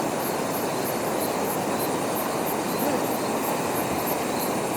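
Steady rushing of a stream's flowing water, with insects chirping in quick repeated pulses high above it.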